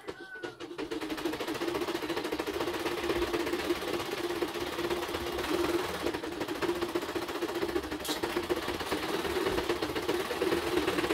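Embroidery machine stitching at a fast, even rate, a rapid rattling hum. It drops out for a moment at the start and picks up again within about a second.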